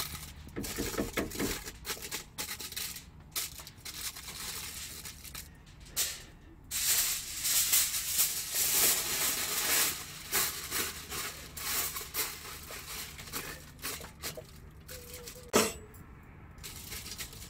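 Aluminium foil crinkling and rustling as it is pressed into a cast-iron Dutch oven and pulled off the roll, loudest in the middle. Near the end, a sharp metal clink with a short ring as a wire trivet rack is set into the pot.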